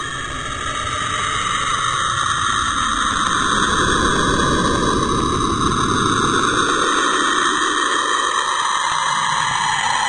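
Cassini spacecraft's recording of the electromagnetic activity of Saturn's auroras, made audible: a dense hiss with a band that slowly wavers up and down in pitch, growing louder over the first few seconds and then holding steady.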